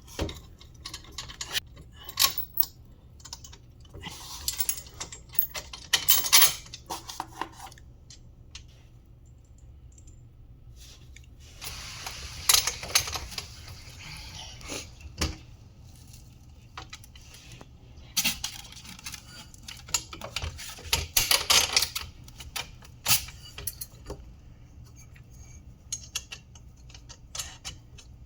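Steel bolts and nuts clinking while the cart's suspension arm is bolted on, with several runs of fast clicking from a ratcheting socket wrench tightening the 3/8-inch bolts.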